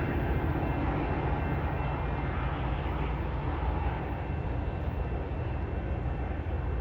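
Metra commuter train running past and away, a steady low rumble that eases slightly about four seconds in.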